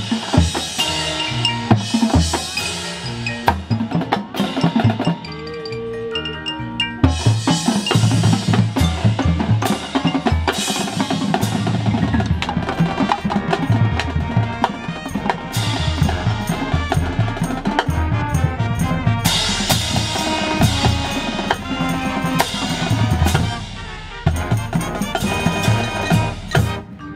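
High school marching band playing: winds and brass over a drumline, with mallet percussion; the full band comes in loudly about seven seconds in.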